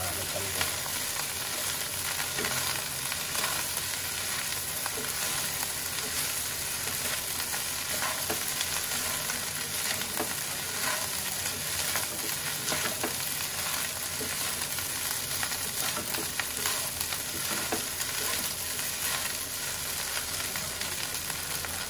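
Fried rice with mustard greens sizzling in a non-stick wok as a wooden spatula stirs and turns it over, with steady frying hiss and scattered light scrapes and taps of the spatula on the pan.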